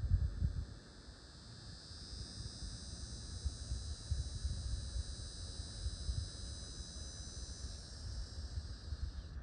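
Insects buzzing: a steady high-pitched chorus that builds in about a second in and cuts off suddenly at the end, over a low rumble of wind on the microphone that gusts loudest at the start.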